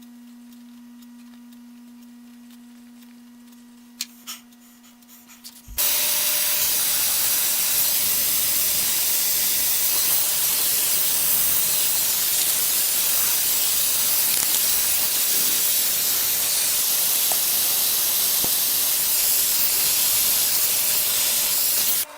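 Loud, steady hiss of a soldering torch flame, which comes on abruptly about six seconds in and holds until it cuts off at the end. Before it there is a low steady hum with a few light clicks.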